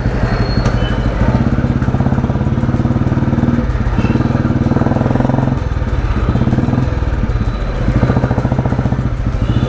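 A 1991 Royal Enfield Bullet's single-cylinder four-stroke engine running on the move in third gear, with a steady, rapid, even beat of firing pulses.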